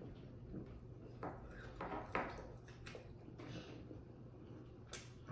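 Faint sounds of eating at a table: a few short, soft clicks, knocks and rustles from dishes and a takeout food container.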